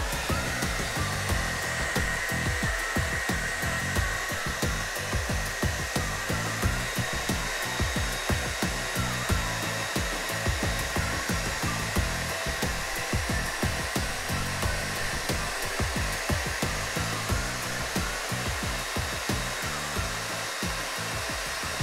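Bed Head TIGI Hot Head hair dryer running steadily, blowing a continuous stream of hot air, with an uneven low rumble underneath.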